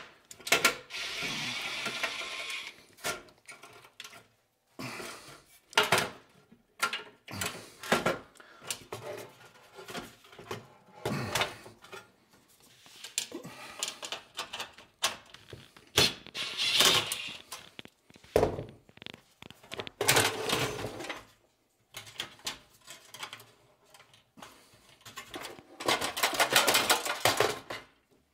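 Small metal screws and light-fixture parts being handled: scattered clicks and clinks, with a few longer stretches of rustling and scraping.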